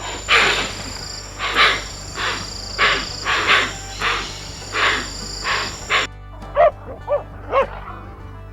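A string of about ten short, harsh animal calls, roughly one every half second, over a steady high whine. After them come three short pitched yelps, with a steady background music bed underneath.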